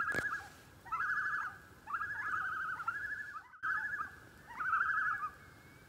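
Bird calling: a series of rapid quavering trills, each lasting about half a second to a second and coming roughly once a second.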